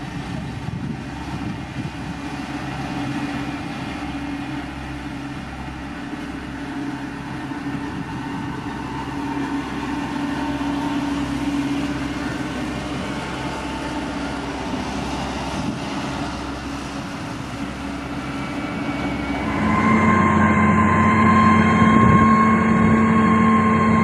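A single-drum road roller's diesel engine running steadily as it compacts crushed stone. Near the end the sound changes abruptly to a louder diesel engine with a steady whine over it, from a motor grader pushing stone.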